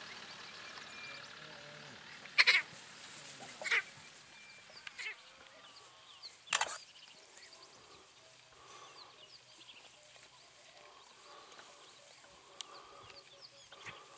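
A tiny lion cub calling with a few short, high squeaky mews spread over the first several seconds while it is carried in the lioness's mouth. The calls are faint.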